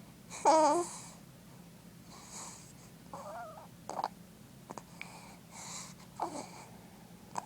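A sleeping boy snoring: a loud, rasping snore with a wavering whistle about half a second in, then softer breaths and a second, quieter whistling snore about three seconds in.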